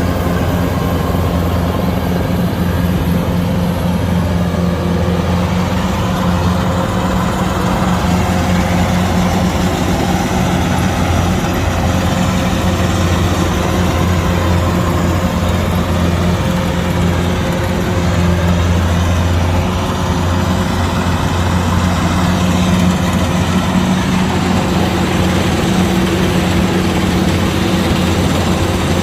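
Kubota DC-105X combine harvester's diesel engine running steadily, a constant low drone that holds without change.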